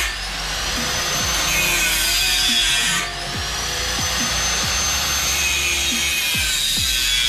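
Angle grinder with a cut-off disc cutting through 40 mm square hollow steel tube: a loud, steady grinding with a high whine. Right at the start and again about three seconds in, the sound drops briefly and the whine climbs back up as the disc's load changes.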